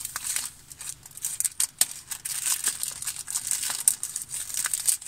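Packet crinkling as it is handled, an unbroken run of sharp crackles.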